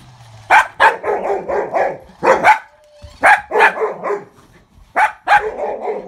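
Dog barking in quick double barks, four pairs over a few seconds, with short pauses between them.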